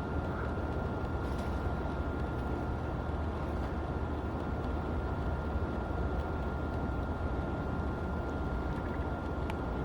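Steady low outdoor rumble with a faint constant high-pitched tone running through it.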